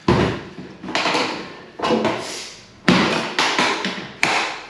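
Ceramic toilet pan being worked forward off its fixing: about six sharp knocks and scrapes in a row, each dying away over about half a second.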